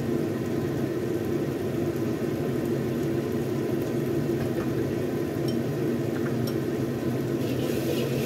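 A steady low mechanical hum runs under sauce cooking in a wok, with a few faint pops. Near the end a metal spatula begins scraping and stirring the sauce, adding a brighter hiss.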